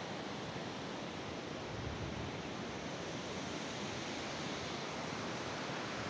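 Steady, even rush of a creek and waterfall.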